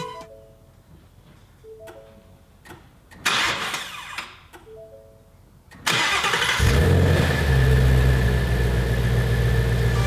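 2018 Ford Shelby GT350's 5.2-litre flat-plane-crank V8 cranks and fires about six seconds in, then settles into a steady idle. Before it, a short electronic three-tone chime sounds three times.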